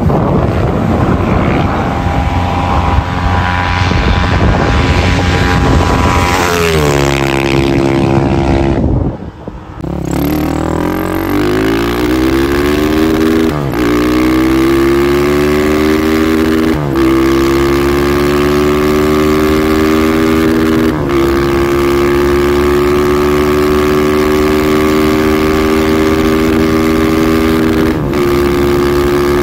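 Motorcycle single-cylinder engine, a Honda CG fitted with a 250 cc Twister engine, running at full throttle and accelerating through the gears at high speed. The engine note climbs steadily and drops sharply at each upshift, several times. Wind noise is heavy at the start.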